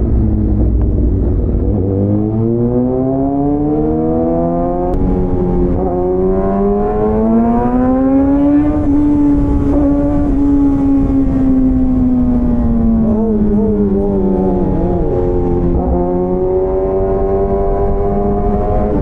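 Superbike engine and exhaust running loud under way, its note climbing steadily for several seconds, then slowly easing down and levelling off.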